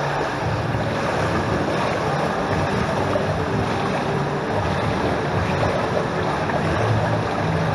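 Steady wash of swimming-pool water lapping and splashing close by, with a low hum underneath.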